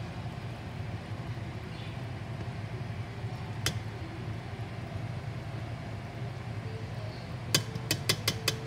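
A steady low hum over a simmering pot of short rib stew, with a single sharp click about three and a half seconds in and a quick, uneven run of sharp clicks near the end as kitchen tongs work the ribs in the stainless steel pot.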